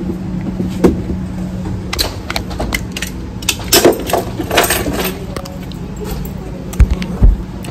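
Handling noise from a phone held close up: a run of small clicks and rattles in the middle, and two dull thumps near the end, over a steady low hum.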